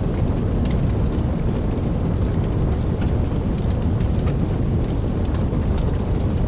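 Wood fire burning: a steady low rumble of flames with scattered soft crackles and small pops.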